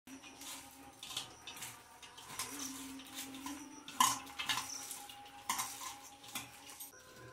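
A hand mixing shredded cabbage with spices and gram flour in a stainless steel bowl: irregular rustling, squishing and scraping, with short metallic clinks against the bowl. The sharpest clink comes about 4 seconds in.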